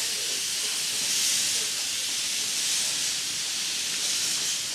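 Saxon IV K narrow-gauge steam locomotive letting off steam: a steady high-pitched hiss.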